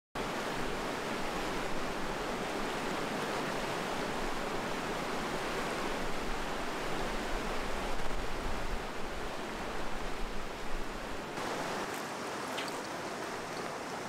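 Shallow mountain stream rushing over rocks: a steady wash of water noise that starts suddenly. Its deep rumble drops away about eleven seconds in.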